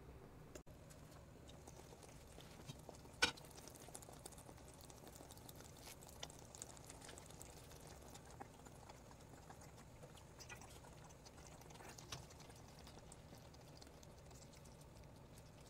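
Faint cooking sounds from a steel pot of thick masala fish curry on a gas stove: scattered light clicks and one sharper knock about three seconds in, over a faint steady hiss.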